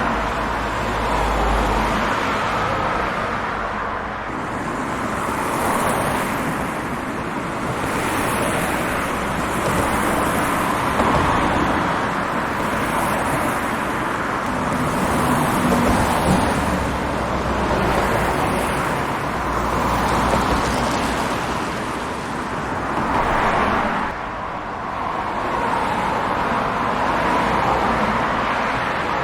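Highway traffic heard from the roadside: a continuous rush of tyre and engine noise as cars pass one after another, swelling and fading every few seconds.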